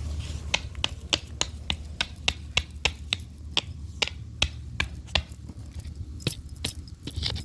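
A hammer repeatedly tapping a flat-head screwdriver to drive it into the ground, with about four sharp strikes a second.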